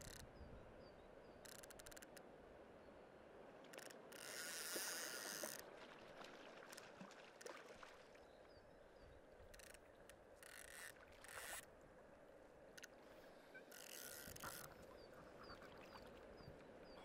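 A hooked wild brown trout splashing and thrashing at the water's surface in several short bursts, the loudest about five seconds in, over a faint rush of river water.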